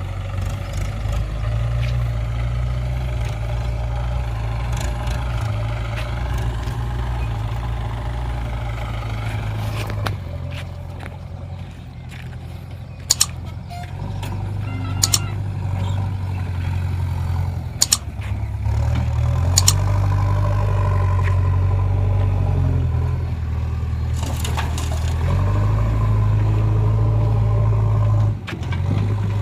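Heavy diesel engine of earth-moving and farm machinery running steadily, its speed dropping and picking up again a couple of times as it works under load. A few sharp metallic clanks sound in the middle.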